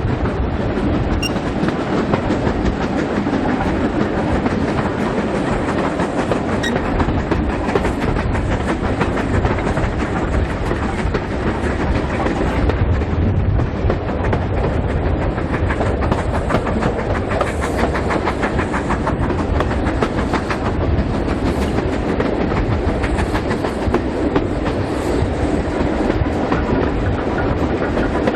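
Steam-hauled heritage passenger train running along the line: a steady rumble with the clatter of wheels over the rails.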